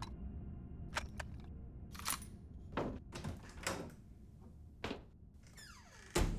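A steady low rumble with a series of sharp knocks and thuds at irregular intervals, then a much louder heavy thump near the end.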